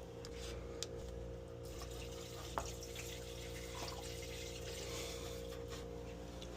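Condensate water trickling down a re-pitched drain hose into the drain, a sign the line is now draining freely. A steady low hum runs underneath, with one faint click about two and a half seconds in.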